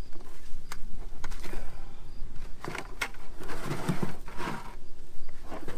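Hands digging and rummaging through loose soil inside plastic five-gallon buckets to get the red potatoes out, making rustling scrapes with a few sharp knocks.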